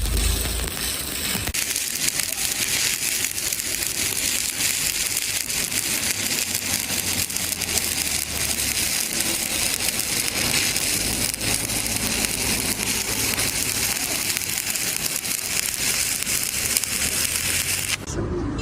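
Stick (shielded metal arc) welding arc crackling steadily. It starts about a second and a half in and cuts off shortly before the end.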